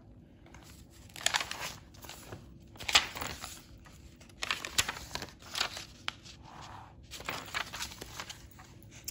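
Paper pages of a handmade altered book being turned and handled, rustling in a series of short crinkles with the sharpest one about three seconds in.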